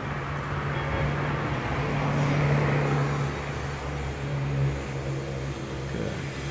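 A motor vehicle's engine hum with rushing road noise, building to a peak a couple of seconds in and then easing off, like a vehicle passing by.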